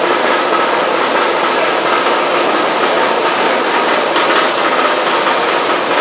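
Continuous pasteurizing and blanching machine running: a steady, even mechanical noise with a faint high steady tone running through it.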